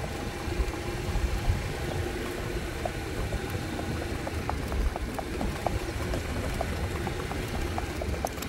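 Steady low rumble, most likely wind on the microphone, over light clicks of a horse's hooves on sand as it moves in the smooth ambling revaal gait (rewal chaal). The clicks come a few times a second, plainer in the second half.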